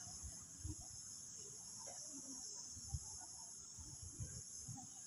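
Faint, steady high trilling of insects such as crickets in the background, with a few soft knocks from handling.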